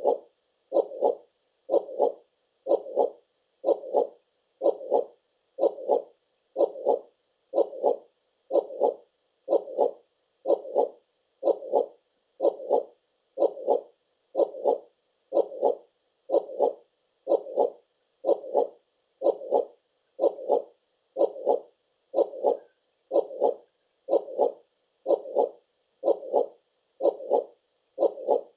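Heartbeat, a steady lub-dub double thump repeating about once a second.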